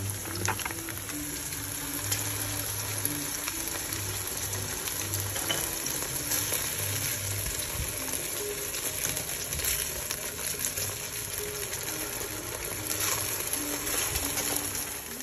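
Tteokgalbi patties sizzling steadily as they fry in oil in a nonstick pan. Soft background music with low notes plays underneath.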